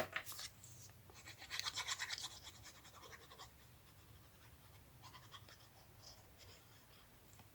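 Paper being handled and rubbed on a desk: a quick run of soft scratchy strokes about a second in, then faint rustles.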